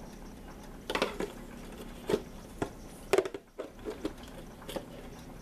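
Metal measuring spoon clinking and scraping against the seasoning container and the mixing bowl as taco seasoning is scooped out and tipped in: a string of separate clinks, the loudest about three seconds in.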